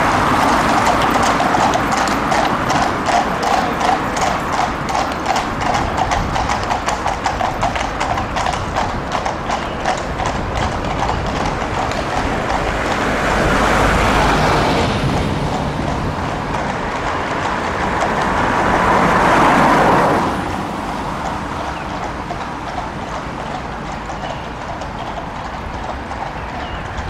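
Police horses' shod hooves clip-clopping on a tarmac road at a walk, a steady run of hoofbeats that fades after about twelve seconds as the horses move off. Passing traffic swells up about 14 seconds in and again about 20 seconds in.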